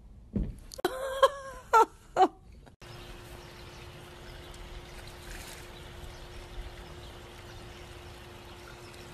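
An animal giving a few short, pitched cries that bend up and down, the loudest three coming in quick succession. After a sudden cut, a steady hum runs over a faint hiss.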